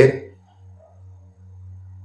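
Faint, steady, low drone of ambient background music in a pause between spoken sentences, with the end of a man's word fading out at the very start.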